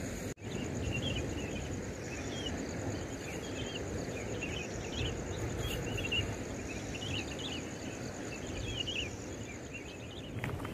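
Night insects chirping: a steady, pulsing high cricket trill with many short, irregular chirps over it, above a low, steady outdoor rumble.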